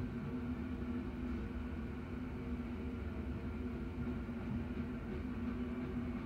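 BNSF freight train rolling past: a steady low rumble with a constant hum.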